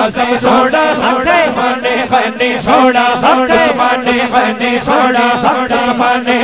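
Male voice chanting a devotional Urdu naat in quick, even phrases over a steady low held note.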